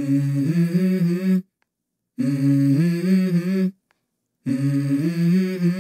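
Background music: a wordless voice humming three short melodic phrases, each stepping up in pitch, separated by breaks of silence.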